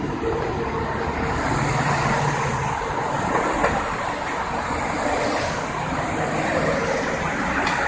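Steady city street traffic noise: passing vehicles' engines and tyres, with a low engine hum that stands out for a second or so near the start.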